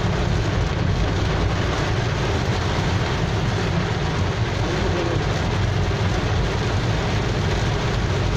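Heavy rain beating on a car's roof and windscreen, heard from inside the moving car over the low, steady rumble of its engine and tyres on the wet road.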